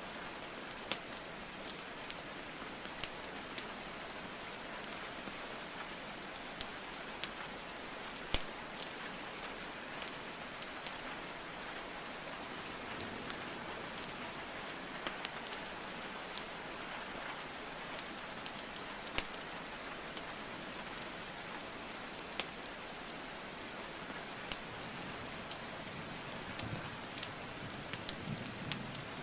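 Steady rain falling, mixed with the irregular crackles and sharp pops of burning logs in a fireplace.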